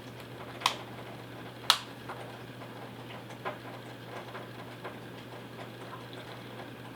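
A red-bellied parrot making small clicking sounds: two sharp clicks about a second apart, then scattered faint ticks, over a steady low hum.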